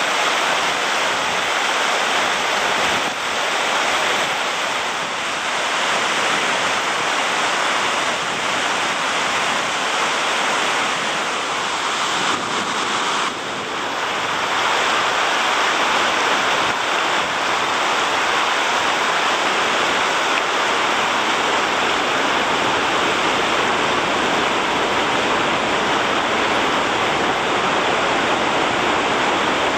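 White water of a rushing mountain river pouring over rocky rapids: a loud, steady rush, with a brief dip about 13 seconds in.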